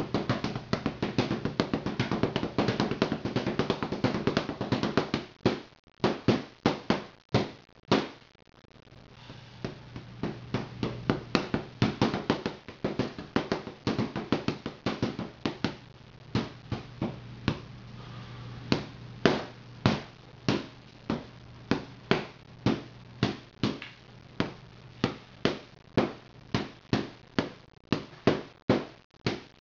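Hand strikes landing on a hanging Everlast heavy punching bag in quick combinations, sharp impacts about two a second with a short pause about eight seconds in.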